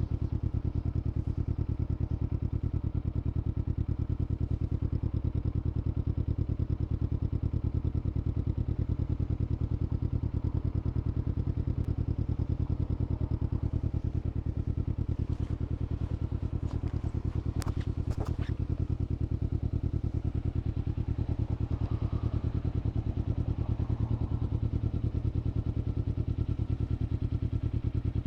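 Kawasaki Z400's 399 cc parallel-twin engine running at a steady, even beat with no revving. A few sharp clicks come about halfway through.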